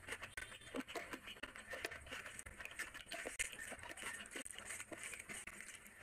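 Bare hand squeezing and mixing wet, curry-soaked rice on a tray, giving an irregular run of small sticky, squishing clicks.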